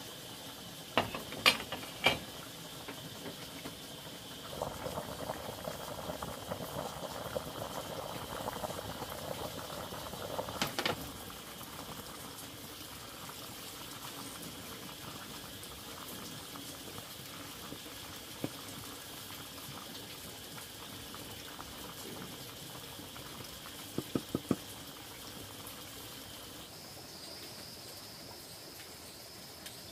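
Liquid boiling in a cooking pot, with a few sharp knocks in the first couple of seconds and louder crackling bubbling from about five to eleven seconds in. A steady high-pitched whine runs underneath and steps up in pitch near the end.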